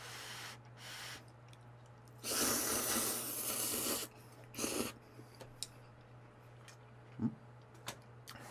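Noodles slurped loudly from chopsticks in one long pull of about two seconds, with a shorter slurp just after. Two soft breaths come before it, and small wet chewing clicks follow. A low steady hum runs underneath.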